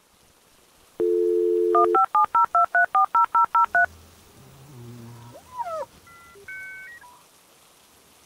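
Telephone dial tone for about a second, then a quick run of about eleven touch-tone keypad beeps as a number is dialled, about five a second. Fainter warbling line tones and a few electronic beeps follow as the call goes through.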